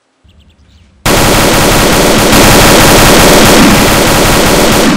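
Long burst of automatic-rifle gunfire, a dubbed machine-gun sound effect, very loud. It starts suddenly about a second in and runs on without a break.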